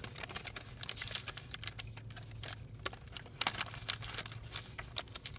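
Paper fast-food sandwich wrapper crinkling as it is handled, with many irregular sharp crackles.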